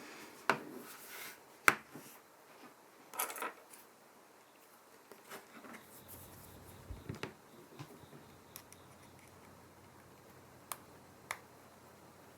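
Scattered sharp clicks and taps of small hard objects being handled on a work surface, with a short low rumble about seven seconds in.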